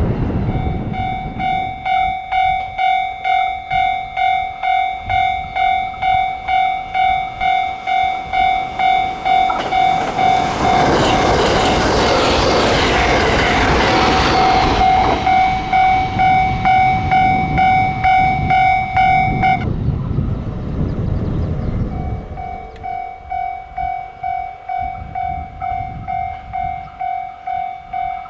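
Level-crossing warning bell ringing about twice a second while a train rushes through the crossing, loudest around the middle. The bell stops briefly after the train clears, then starts ringing again.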